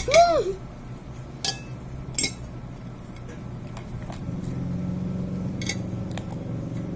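Cutlery clinking against dishes a few times while eating, opening with a short voiced "ah". A low steady hum comes up about halfway through.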